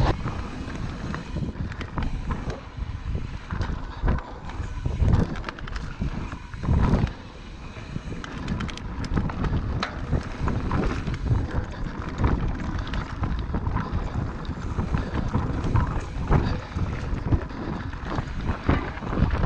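Wind buffeting an action camera's microphone as a mountain bike rides dirt singletrack, with tyre noise on the dirt and frequent knocks and rattles from the bike over bumps.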